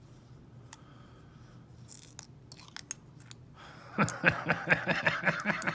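Small metal clicks and scrapes of a shim being worked into an ASSA Ruko2 padlock, turning about four seconds in into a loud, fast run of rattling clicks as the lock is handled.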